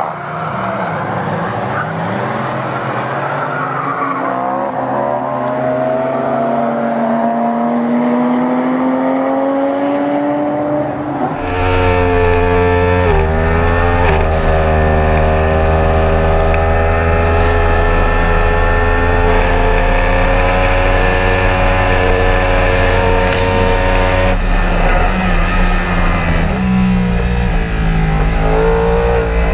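A Yamaha R1's inline-four engine running hard at high revs. Its pitch climbs slowly through long pulls, with short drops at gear changes, under a rush of wind noise. About eleven seconds in the sound turns suddenly fuller and louder, and near the end the pitch dips and wavers as the bike slows.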